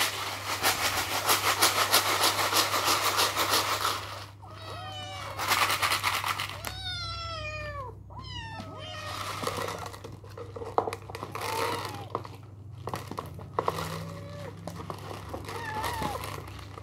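Kittens mewing over and over in short, high, falling calls, starting about four seconds in. Crinkling plastic fills the first few seconds and comes back briefly in between.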